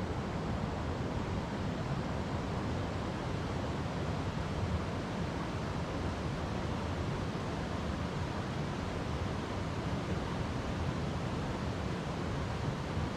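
River water rushing over rocks: a steady, even, unbroken flow.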